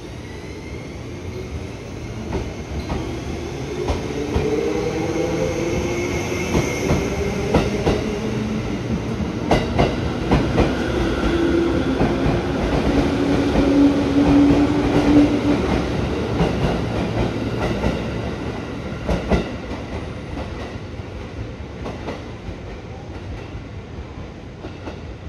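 A 211 series electric multiple unit pulling away from a station platform. Its motors whine, rising in pitch as it gathers speed, and its wheels clack over rail joints. The sound is loudest about two-thirds of the way through, then fades as the train draws away.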